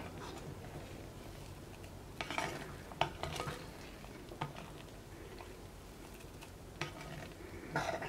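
Metal spoon stirring thick fermented dosa batter in a ceramic bowl, with several short clinks and scrapes of the spoon against the bowl.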